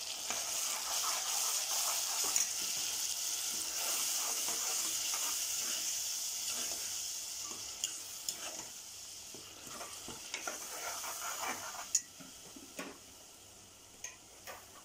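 Vegetables frying in oil in an aluminium pressure cooker, sizzling while a wet green paste of mint, coriander, green chilli and ginger-garlic is stirred in with a steel ladle, with scrapes and knocks of the ladle on the pot. The sizzle fades about twelve seconds in, leaving a few ladle knocks.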